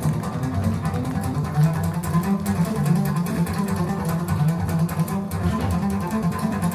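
Recorded music played over hi-fi loudspeakers: a deep bowed-string line carries the low notes, with sharp percussive clicks on top.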